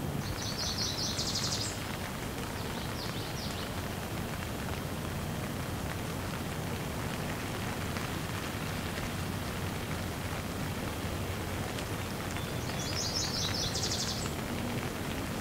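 Heavy rain falling steadily on leaves and ground. A bird gives a quick, rapidly repeated high trill near the start, a shorter one about three seconds in, and another near the end.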